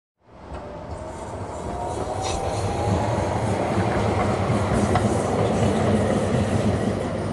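High-speed train passing through a station: a steady rush of wheel and rail noise that swells up over the first two to three seconds, with a faint rising whine and a few sharp clicks.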